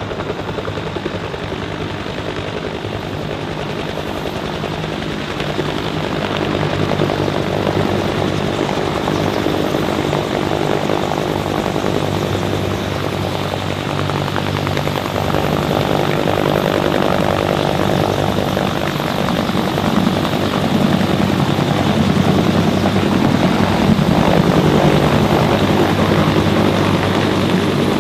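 Bell AH-1 SuperCobra attack helicopter's two-blade main rotor and turbine engines running steadily as it hovers low and sets down to land, growing louder in the second half.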